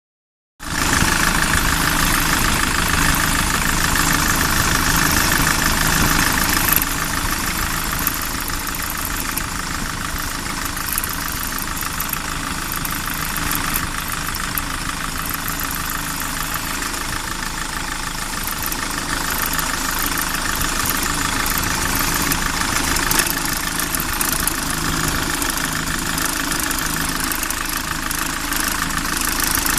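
SsangYong Kyron engine idling steadily with a fast, even clatter: the extraneous engine noise that the owner is trying to identify.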